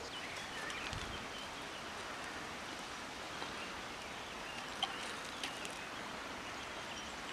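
Steady outdoor background hiss with a few faint, scattered bird chirps.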